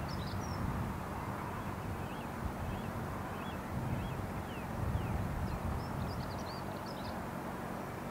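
Small birds chirping in short bursts, in two clusters near the start and again about two-thirds through, with fainter chirps between, over a steady low rumble.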